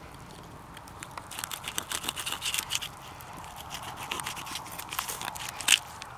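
Knife blade cutting lengthwise along a small perch's backbone on a stone. From about a second in there is a run of short crackling scrapes and clicks as it works through the small bones, with one sharper click near the end.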